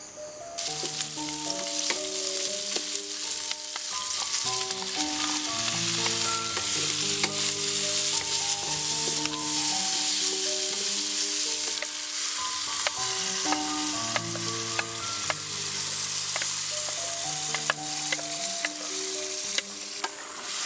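Tomatoes and meat sizzling in hot oil in a wok, starting about half a second in. A spatula stirs the food and clicks and scrapes against the pan.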